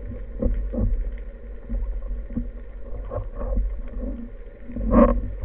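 Underwater handling noise from a wooden speargun as the diver works its rubber band and lines: scattered muffled knocks and clicks over a steady low water rumble, heard through the gun-mounted camera's housing. The loudest knock comes about five seconds in.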